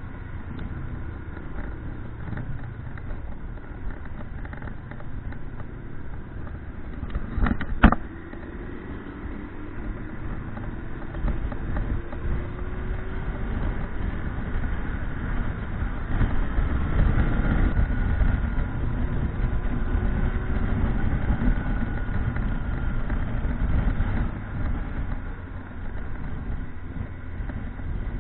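Motorcycle engine running under a steady rumble of wind noise, its pitch gliding up and down and getting louder in the second half. A sharp double click comes about eight seconds in.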